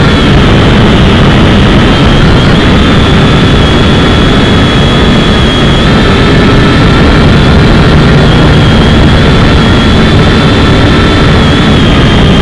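Syma X5C quadcopter's four small brushed motors and propellers in flight, a loud, steady high whine picked up right next to the rotors by the drone's own camera.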